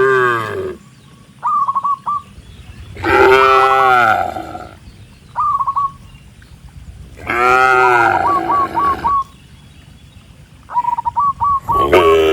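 Cattle mooing: long, loud moos that fall in pitch, one ending at the start, full ones about three and seven seconds in, and another starting near the end. Between the moos, a bird gives quick runs of three to five short, high, down-slurred notes.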